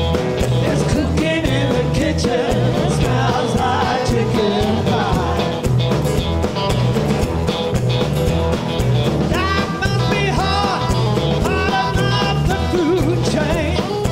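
Live band playing a blues-rock song: drums and bass keep a steady beat under acoustic and electric guitars.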